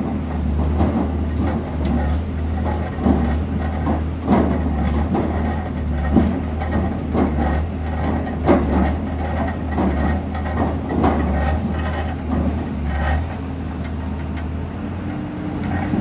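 A heavy engine running steadily, its low note pulsing, with irregular knocks and clanks over it.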